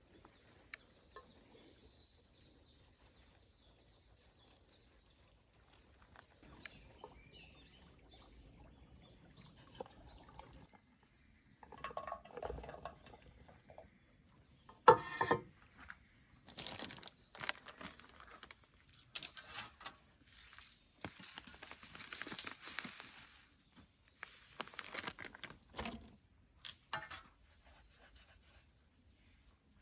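Intermittent rustling and crinkling handling noises with scattered light knocks, the sharpest knock about halfway through; the first third is quiet.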